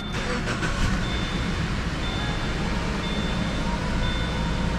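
Subaru Forester flat-four boxer engine idling steadily just after an oil change, run briefly to circulate the new oil before the level is checked. A few clicks sound in the first second, and a high short beep repeats about once a second from about two seconds in.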